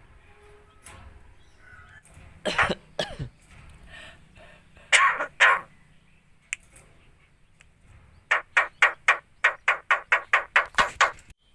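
Javan myna mimicking a human cough: a harsh cough about two and a half seconds in, two more around five seconds, then near the end a quick run of about a dozen short coughing calls, four or five a second.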